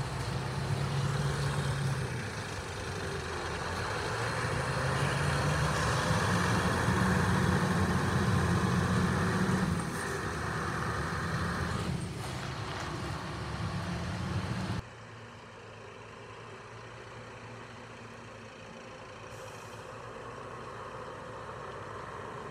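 Scania R560 V8 diesel truck pulling away and accelerating, its engine note rising and falling as it gathers speed, with a brief hiss about halfway through. Partway through the engine suddenly becomes much fainter and more distant.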